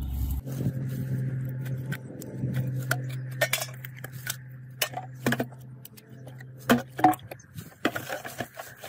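Metal tools clinking and clattering as a hand rummages through a woven plastic sack, in a run of sharp clinks, the loudest about seven seconds in. A steady low hum runs underneath and fades out about seven seconds in.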